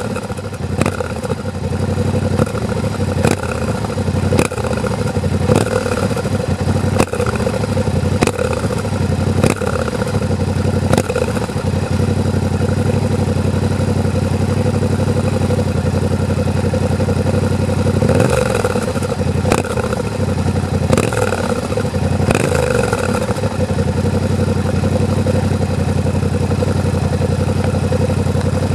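Yamaha Ténéré 700 on its stock exhaust, its 689 cc parallel-twin engine idling steadily. A sharp tick comes a little over once a second through the first eleven seconds, and there are a few short rises in revs about two-thirds of the way in.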